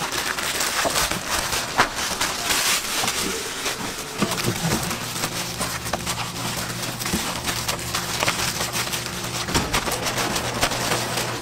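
Plastic bag and plastic sheeting crinkling and rustling, with many small crackles, as plastic-gloved hands press and knead a crumbly mixture.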